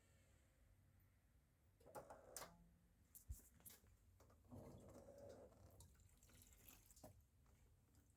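Near silence from the Whirlpool washing machine, with faint water trickling and a few soft clicks.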